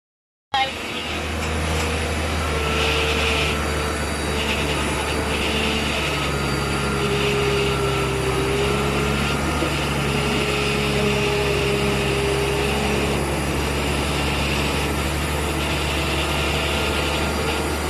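Steady running noise of a parked Airbus A321 jet airliner heard at close range on the ramp: a low drone with several held tones and a hiss. It starts abruptly about half a second in.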